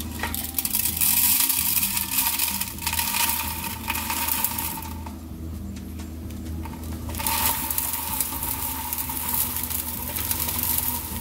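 Dry potassium hydroxide flakes poured from a plastic bottle into a plastic scale bowl, a dense rattling patter of small flakes landing. The pouring pauses for about two seconds midway, then starts again.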